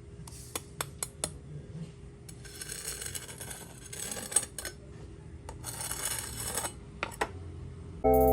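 Crackling crunch of crispy deep-fried pork belly (lechon kawali) being cut, in two stretches, with sharp taps of a knife or utensil, several in quick succession near the start.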